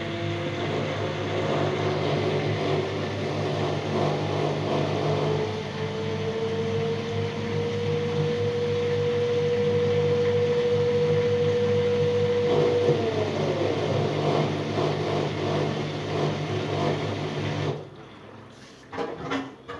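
Washing machine running with a steady low hum and a motor whine that rises to a steady pitch, holds, then falls away as the drum slows. The sound cuts off about eighteen seconds in, followed by a few faint clicks.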